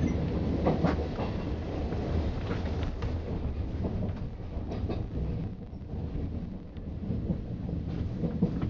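Passenger train running on the rails, heard from inside the carriage: a steady low rumble with a few clicks as the wheels cross rail joints and points.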